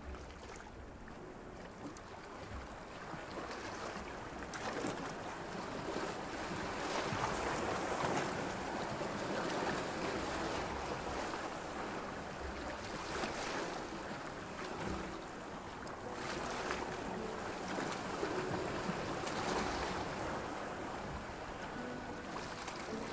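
Sea ambience of waves washing and wind, a steady noise that swells and ebbs every few seconds.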